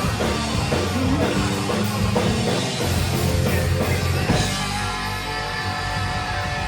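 Live rock band playing: electric guitar, bass and drum kit. About four seconds in, a hit rings out and the band holds a sustained chord.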